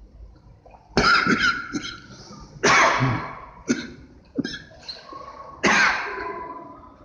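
A person coughing hard, six or seven harsh coughs in uneven bursts, each fading quickly.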